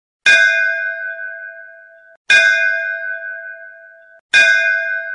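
A bell struck three times about two seconds apart, each stroke ringing with several clear tones and fading, then cut off abruptly just before the next stroke.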